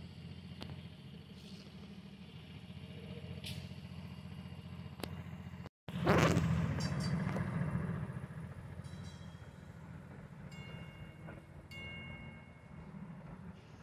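Electric streetcars running on rails. First comes the steady low rumble of a Toronto Peter Witt car with a few clicks. After a break, a CLRV streetcar runs along the track, starting with a loud swell of noise and then giving a few brief high-pitched tones.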